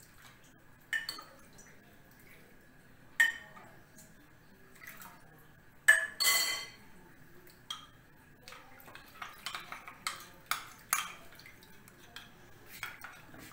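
Kitchen utensils and dishes knocking and clinking: a few sharp knocks, a short rushing noise about six seconds in, then a quick run of small clinks near the end.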